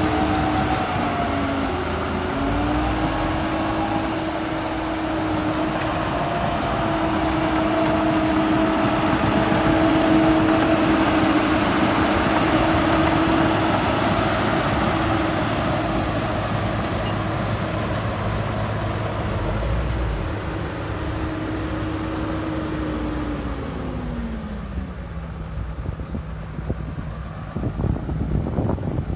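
A heavy earthmoving machine's diesel engine running steadily. Its pitch drops about three-quarters of the way through as it throttles down toward idle. A faint high whine comes and goes over the first two-thirds.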